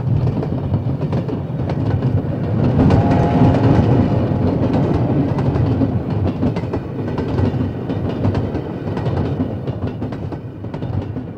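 Train carriages rolling past, wheels clacking over the rail joints above a steady rumble that fades away near the end.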